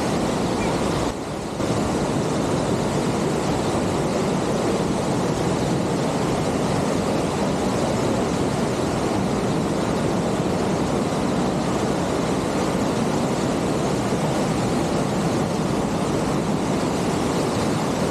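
Whitewater mountain creek rushing over rocks close by: a loud, steady rush of water, dipping briefly in level about a second in.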